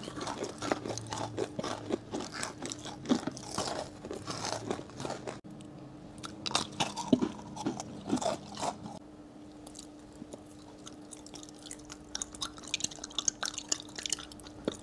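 Close-miked crunching and chewing of crystal jelly candy (kohakutou), its sugar crust crackling with each bite. The crunching is dense for the first five seconds, breaks off suddenly, comes back in a few bites, then eases to quieter chewing with more crackling near the end, over a faint steady hum.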